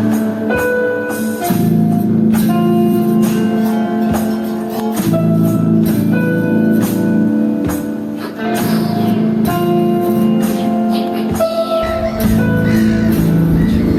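Music with a steady beat and held instrumental notes.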